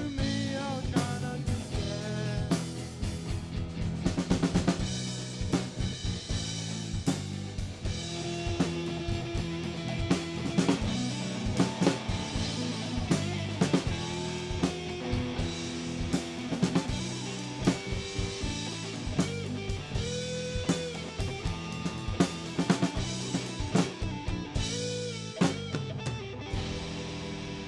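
A band playing live, the drum kit prominent with many sharp snare and bass drum hits, over bass and other pitched instruments whose notes bend up and down.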